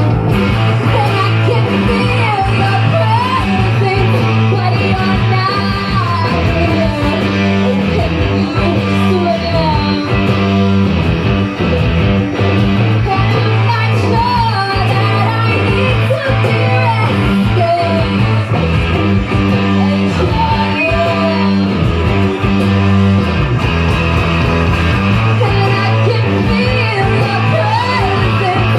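Live rock band playing a song, with a singer's voice over guitar.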